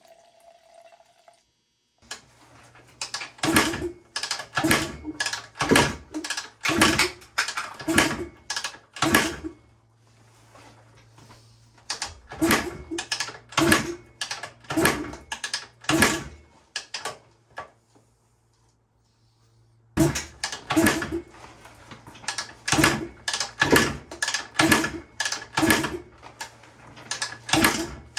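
1974 Yamaha DT360's two-stroke single being kicked over without firing, in three bouts of repeated compression strokes with short pauses between them. It does not catch because no fuel is reaching the cylinder: the owner suspects the carburetor.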